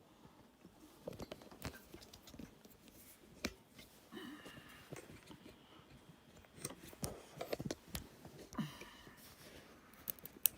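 Hands handling small hard objects: scattered light clicks and knocks, with a short squeaky scrape twice, about four seconds in and near the end.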